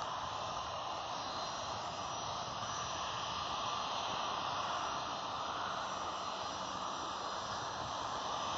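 Jet airliner engines heard at a distance, a steady rushing noise that swells slightly midway and again near the end.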